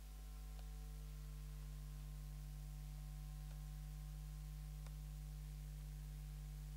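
Steady low electrical hum, a few fixed low tones held without change, with three faint ticks.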